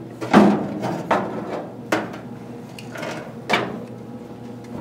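GFK-160 blower's metal housing scraping and knocking on the sheet-metal floor of a fireplace insert as it is slid into place. The loudest scrape comes about half a second in, followed by a few sharp knocks.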